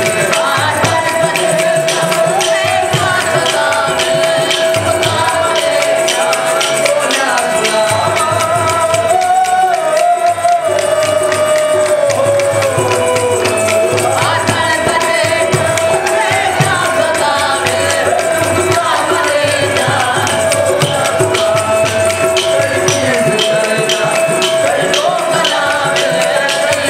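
Qawwali: a group of male voices singing over a harmonium holding a steady note, with constant jingling, shaken percussion.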